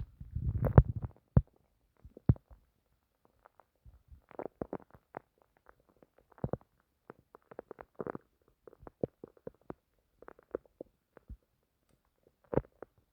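A human stomach rumbling and gurgling. A loud, low, drawn-out gurgle comes in the first second or so, followed after a short pause by scattered short gurgles and pops.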